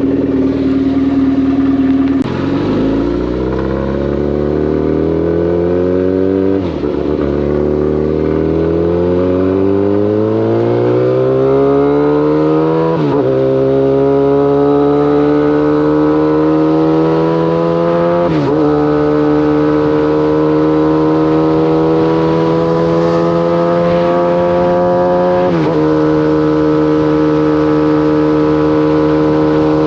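Kawasaki ZX-14's inline-four engine pulling through the gears. The pitch climbs in each gear and drops sharply at five upshifts, each climb slower than the last, then holds steady at a cruise.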